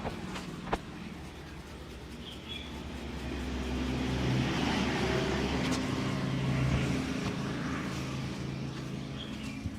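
A motor vehicle passing, its engine growing louder to a peak about halfway through and then fading away. Two sharp clicks sound near the start.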